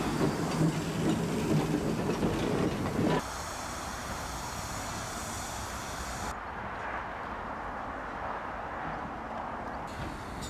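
Steam railway at a station: a tank engine standing with a steady low hum for the first three seconds, then after an abrupt cut, quieter train noise with light rail clatter.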